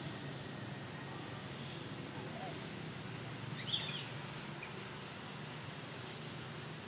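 Outdoor background with a steady low hum and one short, high, gliding chirp a little past the middle.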